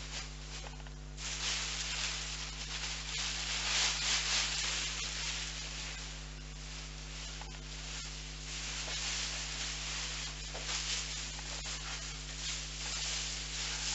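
Crinkly rustling of a thin plastic bag and sleeping-bag fabric as a sleeping bag is stuffed into the bag by hand. It is light for the first second, then continuous in uneven surges.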